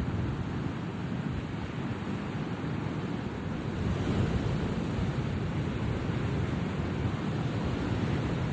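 Steady rushing of surf and wind with some wind buffeting the microphone; no bird calls stand out.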